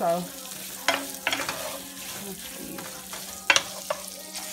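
Sliced smoked sausage sizzling in a nonstick frying pan as a wooden spoon stirs it. A few sharp clacks of the spoon against the pan come through, the loudest about three and a half seconds in.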